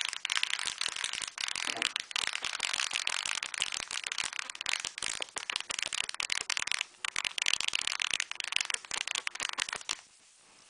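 A magnet spinning and rattling inside the hollow core of a homemade Bedini pulse-motor coil, kicked round by the coil's pulses: a fast, continuous clatter of ticks that cuts off about ten seconds in. It clatters because it has no proper axis to spin around.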